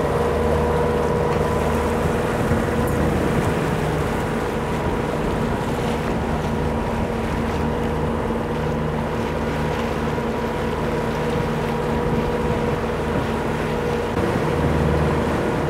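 The inboard diesel engine of a Beneteau Oceanis 45 sailing yacht running steadily as the boat motors along, with wind and water rushing past the hull.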